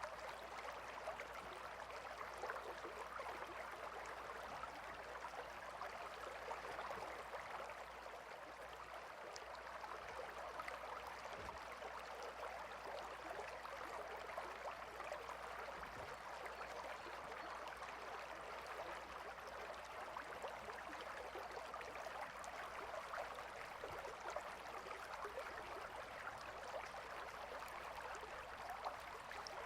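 A gentle river flowing steadily: an even, soft babble of running water.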